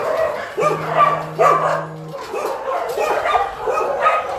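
Several dogs barking and yipping at once, their short calls overlapping.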